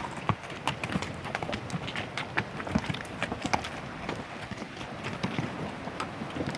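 Horses' hooves clip-clopping in an uneven run of hoof strikes, several a second.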